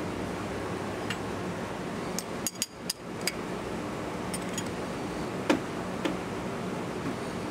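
Metal parts and tools clinking as they are handled and set down: a few light clicks, a quick run of ringing clinks about two to three seconds in, and a few more single clinks later, over a steady low hum.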